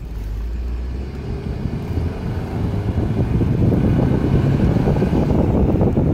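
Car driving on a paved road: steady engine, tyre and wind noise, growing louder about three seconds in.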